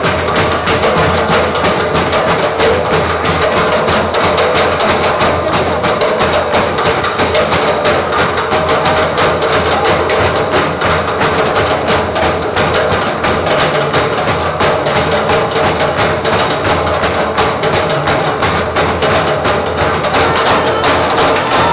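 Percussion ensemble playing fast, dense rhythms on recycled objects and workshop tools, with many rapid strikes and a steady held tone underneath.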